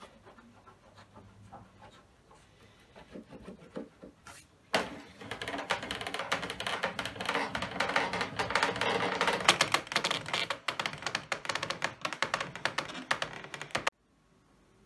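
Wooden vise screw and its wooden guide being worked, wood rubbing on wood as a dense run of rapid clicking creaks. It is faint at first, turns loud about five seconds in, and cuts off abruptly near the end.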